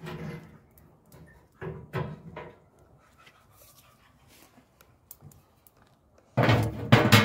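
Metal fish skewers clinking and scraping against the sides of a sheet-metal smoker box, a few short rattles. Near the end, the metal lid goes onto the box with a loud clatter.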